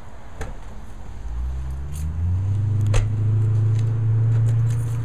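A few sharp clicks of keys and a latch on a ute's canopy door, over a low steady rumble that comes up about a second in and grows louder.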